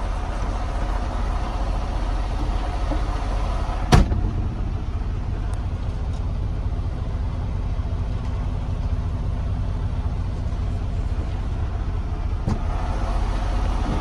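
Semi-truck tractor's diesel engine idling steadily, heard from inside the cab. There is a sharp knock about four seconds in and a lighter one near the end.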